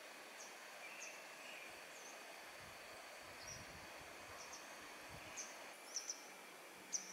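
Faint outdoor ambience with birds chirping: short, high chirps every second or so, coming closer together and louder near the end, over a steady hiss and a thin, steady high tone.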